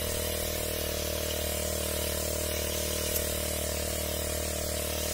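Motorized backpack crop sprayer running steadily at raised throttle, its motor holding a constant pitch, with the hiss of mist spraying from a two-nozzle boom.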